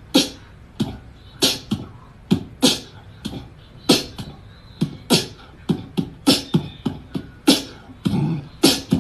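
Beatbox-style percussion music: sharp vocal beats and low thumps at about two or three a second.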